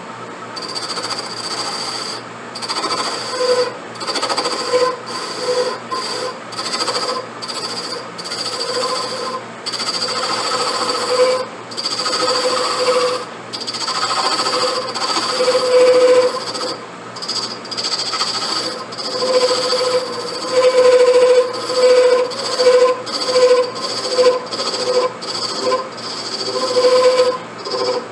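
Ebonite rod being turned on a lathe, the cutting tool taking short repeated cuts: a hissing, whining cut that starts and stops every second or two over a steady running hum.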